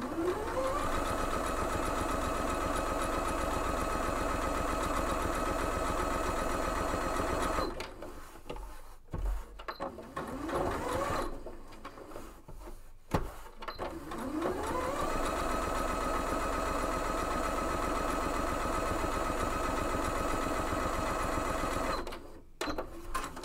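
Electric sewing machine stitching a folded four-ply fabric strap in two long runs, each starting with the motor's rising whine as it comes up to speed, then running steadily before it stops. Between the runs there are a few light clicks, a brief short burst of stitching and a single knock.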